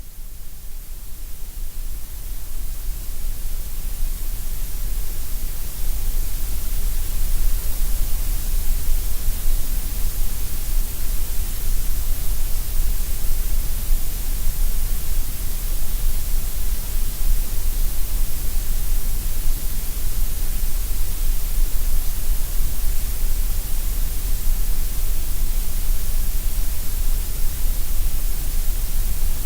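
Grey noise: a steady synthetic hiss with a deep low rumble and bright high hiss, thinner in the middle range. It fades in over the first few seconds, then holds steady.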